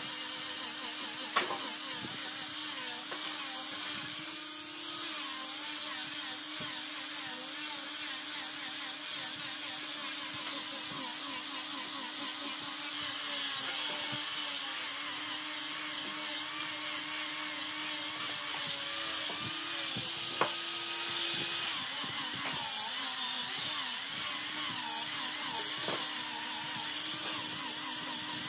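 Electric angle grinder with a sanding disc running steadily while sanding a curved wooden table leg: a constant motor hum over a rasping hiss from the disc on the wood. The motor pitch shifts slightly a few times as pressure on the disc changes.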